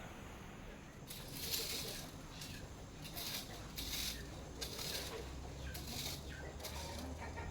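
Repeated scratchy scraping strokes, roughly one every second, starting about a second in: debris being cleared by hand.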